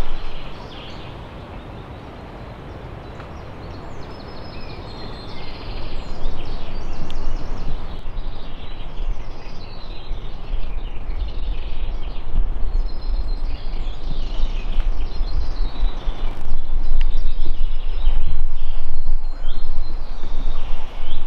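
Strong wind blowing through trees and buffeting the microphone, growing louder in gusts over the last few seconds, with small birds chirping and singing.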